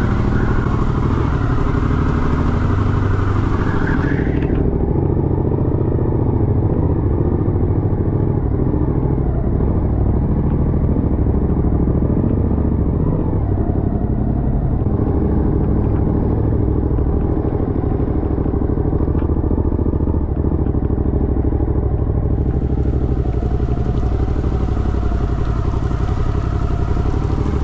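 Suzuki V-Strom adventure motorcycles running steadily at low revs as they ride slowly out of a yard.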